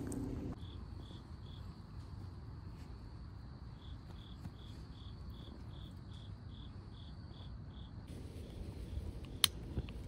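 Crickets chirping: a steady series of short, high chirps at one pitch, about three a second, pausing briefly early on and stopping near the end. A single sharp click near the end is the loudest sound.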